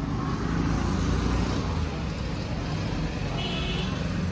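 Hero Splendor motorcycle's single-cylinder engine idling steadily.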